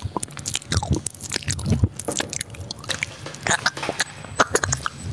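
Wet, crunchy chewing and mouth noises very close to a microphone: an irregular run of sharp clicks and crackles.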